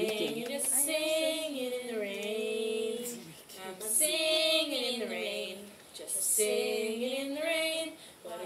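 A female voice singing a slow melody in three long, held phrases with short breaks between them.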